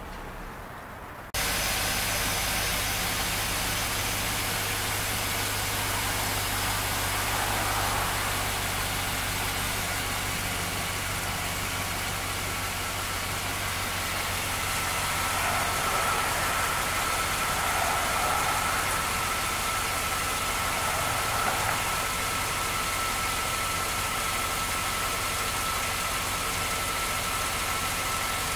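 2003 GMC 2500 HD pickup's gasoline V8 idling steadily, starting about a second in after a quieter stretch. A thin, steady high whine joins about halfway through.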